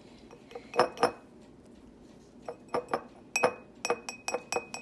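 Glass jar clinking: sharp taps against the glass that ring on briefly, two about a second in and then a quicker run of about eight in the second half, as glitter is tapped into the jar.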